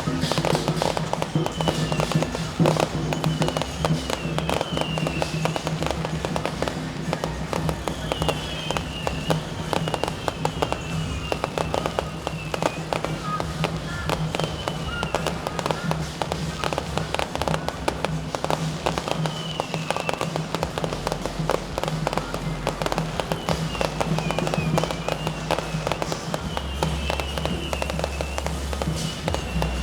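Strings of firecrackers going off in a dense, unbroken crackle of rapid pops, over music with a steady low hum and short wavering high notes.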